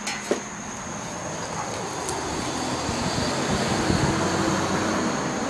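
A sharp knock just after the start, then the rumble of a passing vehicle swelling over a couple of seconds and holding.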